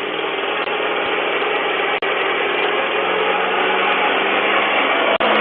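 Truck engine running close by, heard through a doorbell camera's microphone as a loud, steady drone with a low hum, growing slightly louder.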